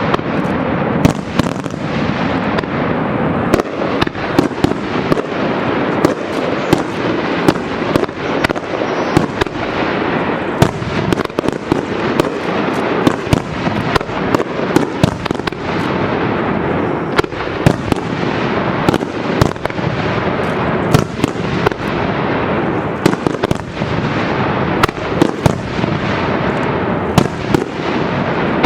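Fireworks display going off in a dense barrage: many sharp bangs in quick succession over a continuous crackle and rumble.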